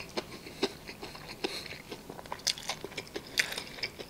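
Close-up chewing of crispy fried chicken: irregular sharp crunches of the breading and wet mouth clicks.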